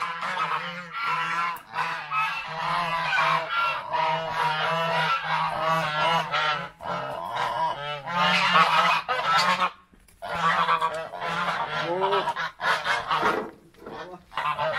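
A flock of domestic geese honking over and over, many calls overlapping, with only a brief lull about ten seconds in.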